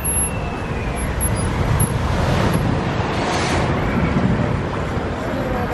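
Open-sided parking tram running along a road, a steady rumble of engine and tyres, with an oncoming shuttle bus passing about halfway through.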